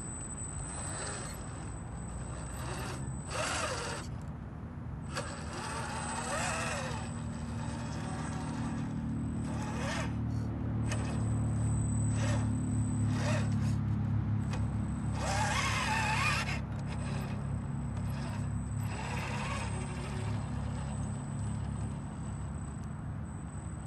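Boom Racing BRX02 RC crawler's electric motor and geared drivetrain whining steadily as it climbs a rutted dirt slope, working harder through the middle, with short bursts of tyres scrabbling over dirt and stones.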